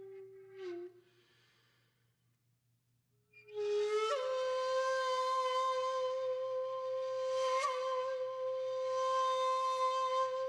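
Background music played on a flute-like wind instrument, holding long single notes. One note ends about a second in and a near-silent pause follows. A higher note comes in at about four seconds and is held, wavering a little near the end.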